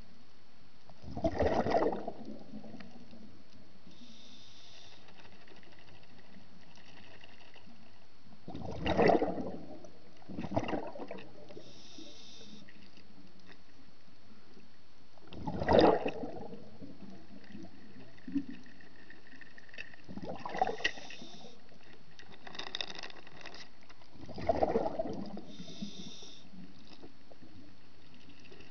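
Scuba diver's exhaled bubbles rushing out of the regulator in bursts every several seconds, with fainter hissing between them as the diver inhales, heard underwater through the camera housing.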